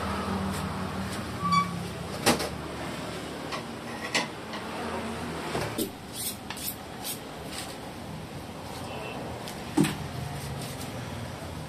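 Scattered sharp knocks and clinks as a pork carcass is handled and cut with a knife on a stainless steel table, over a steady low hum.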